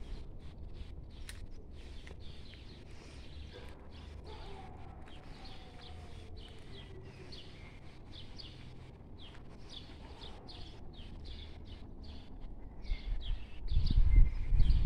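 Small birds chirping and twittering over a low outdoor background rumble, which gets louder and rougher in the last second or so.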